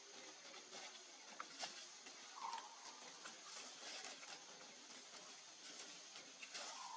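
Faint monkey calls: two short, slightly falling squeaks, one a few seconds in and one near the end, over scattered light clicks and rustling.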